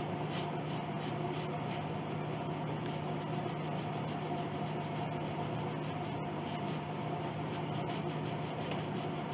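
Damp cloth rubbing in short back-and-forth strokes on a wooden piano soundboard, faint under a steady background hum.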